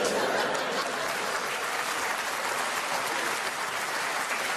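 Live audience applauding: clapping breaks out and goes on at a steady level.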